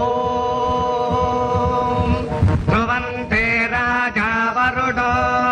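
Mantra chanting in a film soundtrack: a long steady held note for about the first two seconds, then chanted phrases moving between pitches.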